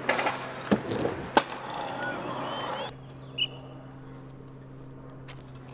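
Stunt scooter wheels rolling on concrete, with three sharp knocks in the first second and a half as the rider rides a manual over a concrete box and drops off it. About three seconds in the sound cuts to a quieter background with a steady low hum.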